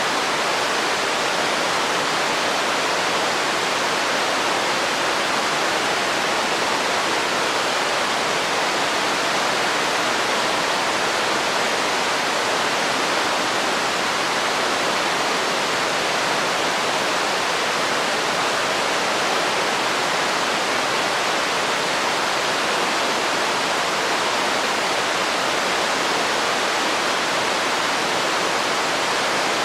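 Waterfall: a steady, unbroken rush of falling water that holds an even level throughout.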